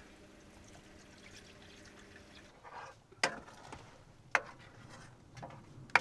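Red wine being poured into a steel pan of simmering onion, garlic and broth, a faint steady pour, followed by three sharp clicks in the second half.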